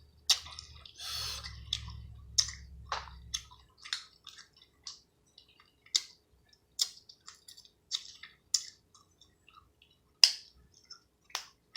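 Close-miked eating of seafood: chewing, with a string of short, sharp mouth clicks at irregular spacing, about one or two a second, and a longer rustling stretch in the first few seconds.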